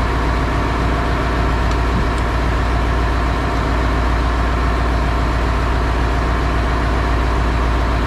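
Fishing boat's engine running steadily, a continuous low hum.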